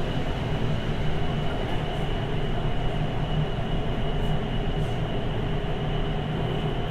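A Siemens C321 Taipei Metro car running between stations, heard from on board. A steady rumble of wheels on rail, with a faint steady high tone running through it.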